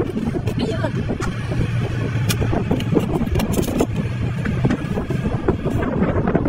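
A steady low motor rumble, with scattered sharp cracks as the shell of a cooked lobster is broken apart by hand.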